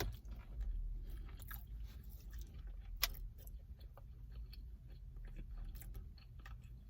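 Close-miked chewing and wet mouth sounds of someone eating a rice and chicken bowl, with scattered small smacks and clicks.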